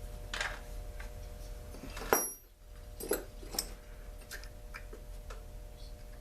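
Scattered light clicks and taps of tools and parts being handled while a chainsaw's housing is taken off, with the sharpest click about two seconds in, over a faint steady hum.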